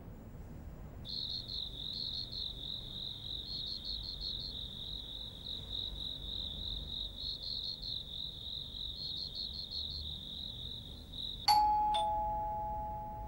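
Crickets trilling steadily in a high, evenly pulsing chirr; about eleven and a half seconds in a doorbell chime rings its two-note ding-dong, the second note lower, and fades away.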